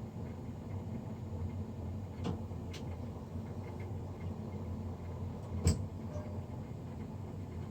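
Navien NCB-240 combi boiler's fan running with a steady, loud low hum, the fan noise the owner is complaining of. There are a couple of faint clicks, and one sharper click comes about five and a half seconds in.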